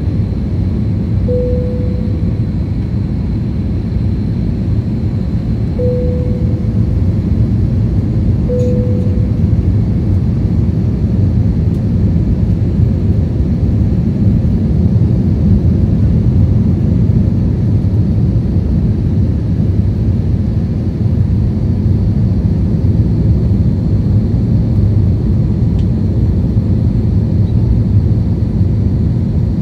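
Steady roar of an aircraft in flight heard from inside the cabin: engine and airflow noise, deep and even throughout. Three brief tones of the same pitch sound within the first nine seconds.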